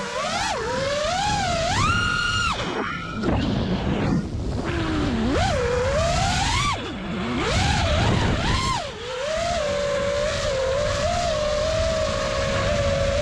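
Armattan Badger FPV quadcopter's brushless motors and propellers whining, the pitch swooping up and down with the throttle. It rises high and holds about two seconds in, drops out briefly around three to four seconds in, then settles into a steadier, slightly wavering whine near the end, over wind rushing across the on-board microphone.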